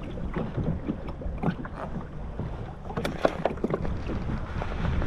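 Wind on the microphone and a steady low rumble of water against a kayak, with scattered small clicks and taps from unhooking a triggerfish held on the kayak's plastic deck; one sharper tap a little past halfway.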